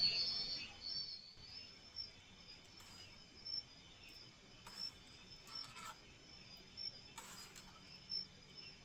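Night insects, crickets among them, chirring in a steady high-pitched chorus, loudest at the start and then settling lower. Four or five short, scratchy noises break through from about three seconds in.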